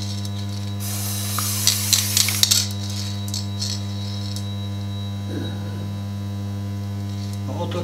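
Stationary magnetic-particle bench magnetizer humming steadily at mains frequency while current passes through the central conductor. From about a second in, a hiss of spraying in short bursts lasts about two seconds as magnetic particle suspension is sprayed onto the test piece.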